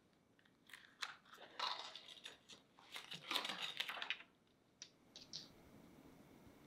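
Clear acetate mousse strip being peeled off the side of a set cake, crinkling and rustling in a run of quick bursts for about three and a half seconds, then a couple of short crinkles.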